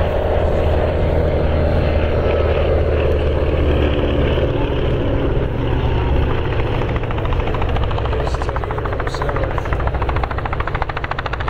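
Lisunov Li-2's twin nine-cylinder Shvetsov ASh-62IR radial engines and propellers droning as the aircraft passes. The pitch sags slightly in the first half, and in the second half the drone takes on a fast, even pulsing beat.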